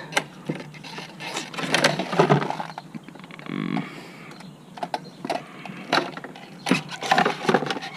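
Irregular clicks, knocks and rattles of a plastic fuel pump assembly being worked up out of a car's fuel tank.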